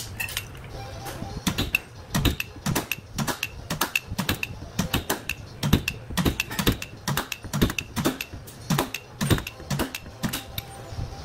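Sharp metallic taps on the steel sheet-metal panel at the rear wheel arch during panel beating, roughly two a second in an uneven rhythm, each with a short ring.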